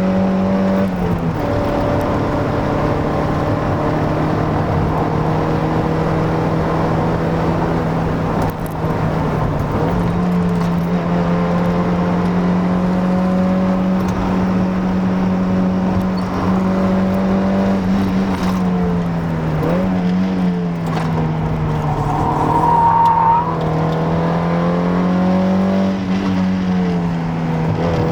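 Mazda Miata NA's 1.6-litre four-cylinder engine running under way at fairly steady revs, its pitch dropping slightly about a second in, rising about ten seconds in, and dipping and climbing again around two-thirds through. A brief high squeal is heard about 22 seconds in.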